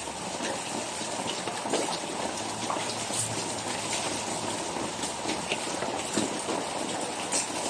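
Steady rain falling: an even hiss with scattered drops tapping on surfaces.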